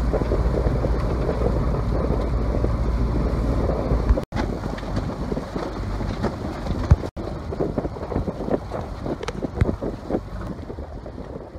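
Wind buffeting the microphone on a sailboat motoring through open water, with a heavy steady low rumble that eases after about four seconds into gustier, patchier wind noise.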